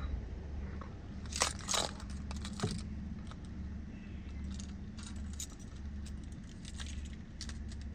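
Car keys clinking, a few short metallic clicks in the first three seconds, over a steady low hum.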